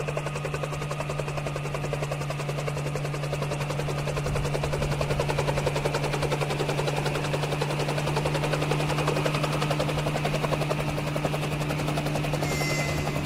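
Electric locomotive hauling a passenger train as it approaches, a steady low hum with a fast flutter that grows louder as it nears.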